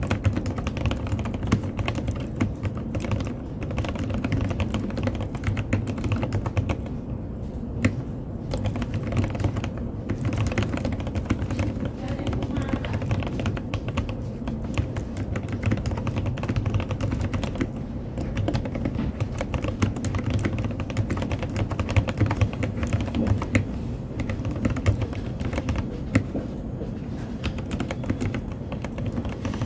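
Continuous fast typing on an NJ68 mechanical keyboard fitted with Heavy Industry keycaps: a dense, unbroken stream of keystroke clacks.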